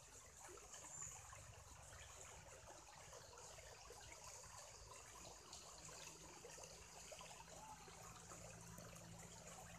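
Faint trickling and splashing of shallow water as hands move a crab about in it, with a low steady hum coming in about halfway.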